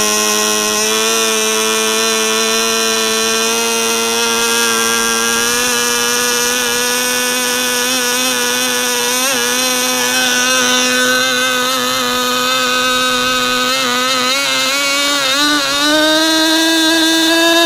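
RB 3.5 cc model-aircraft glow engine with an aluminium tuned pipe, running at high revs on the ground, nitro-fuelled and swinging an APC 6.7x6 propeller. Its high-pitched whine holds steady, wavers briefly, then steps up to a higher, steady pitch about 16 seconds in.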